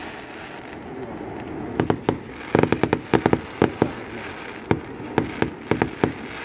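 Fireworks going off: after a quieter first couple of seconds, rapid volleys of sharp pops and bangs follow one another in quick clusters.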